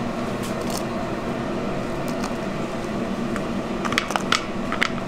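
Steady background hum with a few light, sharp clicks and taps about four seconds in, as powder flux is shaken from a metal can into a small glass dish.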